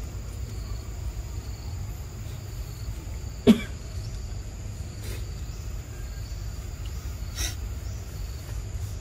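Forest ambience: insects keep up a continuous high thin drone over a steady low rumble. About three and a half seconds in, one short, loud sound cuts through, and a fainter click follows near the end.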